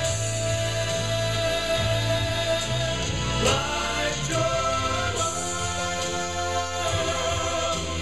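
A Christian song with singing over instrumental backing, a long held note through the first few seconds before the melody moves on.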